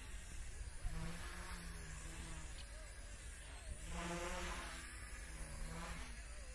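WLtoys V933 RC helicopter buzzing in flight, its pitch rising and falling as the rotor speed changes, loudest about four seconds in. Low wind rumble on the microphone underneath.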